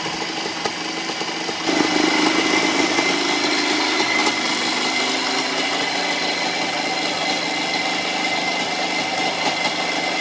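1975 Bultaco Sherpa T 350's single-cylinder two-stroke engine running on its stand. About two seconds in it gets louder for a couple of seconds, then settles to a steady run.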